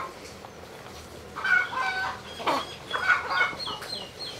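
Chickens clucking, in short calls that start about a second and a half in, with a quick run of high, falling chirps near the end.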